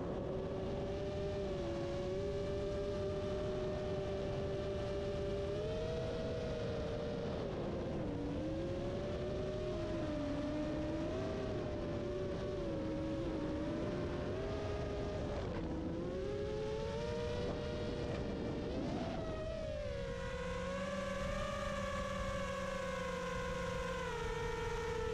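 FPV quadcopter's brushless motors and propellers whining over wind rush. The pitch wobbles and dips with the throttle through the middle, swoops up and back down near the two-thirds mark, then runs steadier toward the end.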